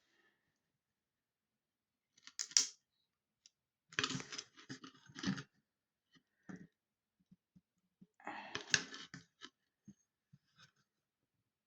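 Small handling sounds from hands at work: scattered clicks and short crackly rustles, in two busier spells about four and eight seconds in.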